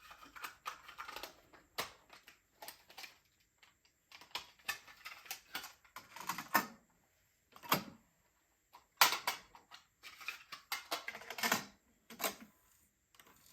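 Cassette tapes and their plastic cases being handled: irregular clicks, clacks and rattles, with a few sharper clacks in the second half.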